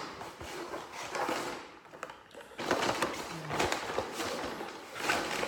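Rustling and light knocks of packaging, in irregular bursts, as boxed squid jigs are taken out of a shopping bag and handled on a table.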